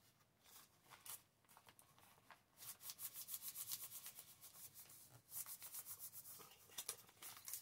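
Faint, rapid rubbing strokes on paper, in two spells of about two seconds each, starting about a third of the way in.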